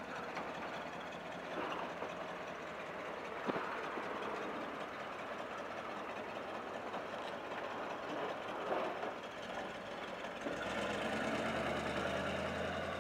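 A 1966 Dodge Sportsman van's V8, running on LPG, idles steadily with a short click a few seconds in. About ten and a half seconds in, the engine note becomes louder and deeper as the van moves off.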